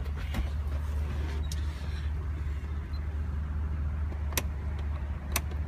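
Chevrolet Express van's engine idling steadily, heard from inside the cabin as a low hum, with two sharp clicks about a second apart near the end.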